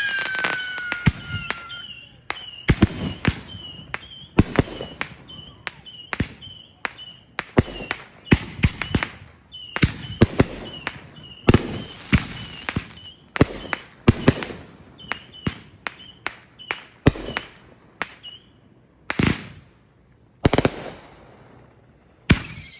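Fireworks going off: a falling whistle fades out over the first couple of seconds, then a long run of sharp bangs and cracks, several a second, with short whistles among them. Near the end come two louder single bangs, a brief lull, and another falling whistle.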